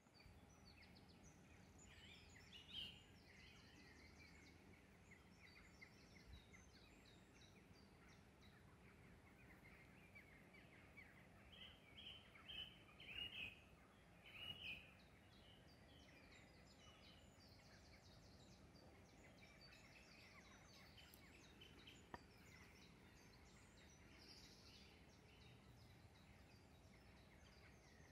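Faint birdsong over low background hiss: many small birds chirping and trilling, with a louder run of calls about halfway through.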